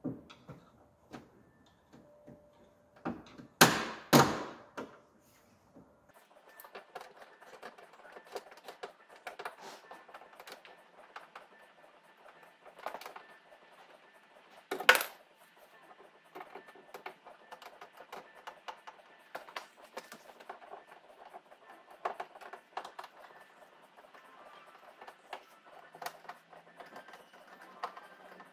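Hand ratchet clicking in quick runs as screws are backed out of a plywood door panel, with a few louder sharp knocks about four seconds in and again about halfway.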